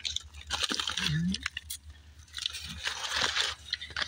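A woman's voice murmuring briefly, between short rustling sounds and small clicks.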